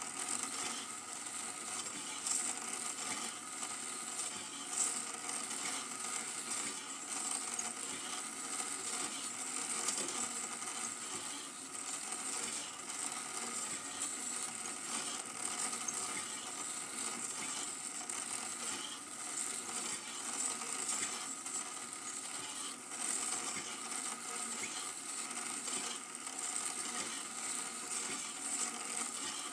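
Super 8 film projector running steadily: a rapid mechanical ticking from the film advance over a constant hiss.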